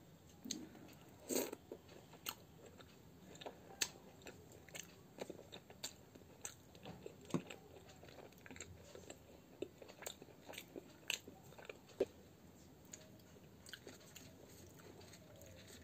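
A person chewing and biting fried Indian bread dipped in potato curry, close to the microphone, with irregular sharp crunches and wet mouth clicks.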